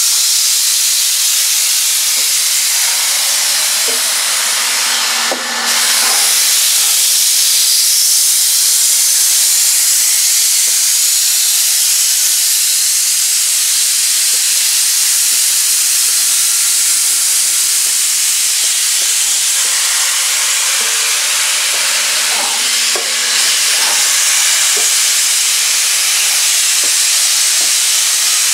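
Steam hissing loudly and steadily from the standing German class 01.10 express steam locomotive 01 1075, with two brief dips in loudness.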